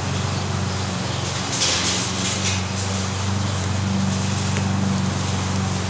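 A steady low hum underlies everything. Faint crackling of painter's tape being handled on a foam model fuselage comes in about a second and a half in and lasts about a second.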